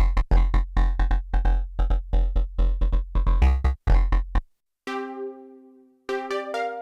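Arturia MiniFreak synthesizer playing presets: a fast, repeating bass-heavy note pattern that stops about four seconds in. After a short gap, a different preset sounds a sustained note that fades slowly, followed by a quick group of higher, fading notes.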